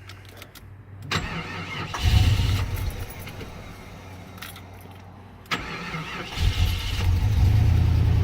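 The 1989 Jeep Grand Wagoneer's 5.9-litre AMC 360 V8 is cranked and starts about a second in, flares and then settles to a lower, steady run. About five and a half seconds in it picks up again and runs louder and steadily.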